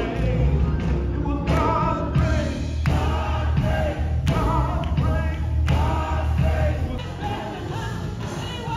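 Music: a song with singing over a heavy bass line, with a strong drum hit about every one and a half seconds.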